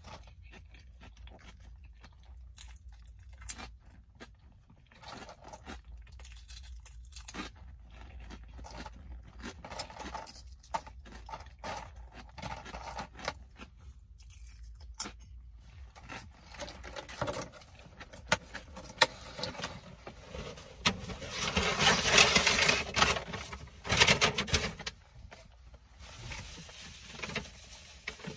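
A person eating: chewing, with scattered small clicks and soft rustles of handling food. In the last third comes a louder stretch of rustling, about four seconds long.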